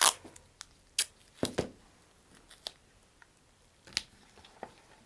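Tape being pulled from a roll, torn off and pressed onto a cardboard rocket body tube with gloved fingers: a string of sharp crackles and snaps, the loudest right at the start, another pair about a second and a half in and one near the four-second mark.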